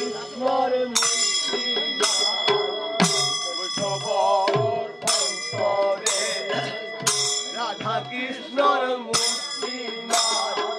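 Vaishnava devotional kirtan music in an instrumental passage. Small hand cymbals clash about once a second and ring on between strikes, over low drum beats and a wavering melody.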